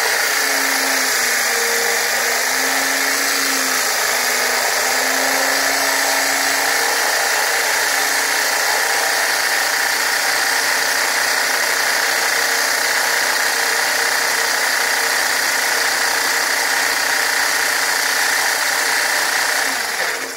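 Electric drill running steadily with a core bit grinding a hole into a granite slab, with a slightly wavering motor hum; it stops near the end.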